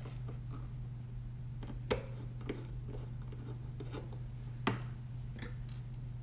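Small clicks and taps of robot-kit parts and screws being handled and fitted by hand, over a steady low hum. Two sharper knocks stand out, about two seconds in and again near the five-second mark.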